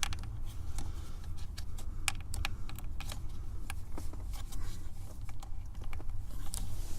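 Quick, irregular small plastic clicks and taps, like typing, from working the 2003 Honda Accord ignition switch's wiring connector to seat it. It is unclear whether the connector's latch has clipped. A steady low hum runs underneath.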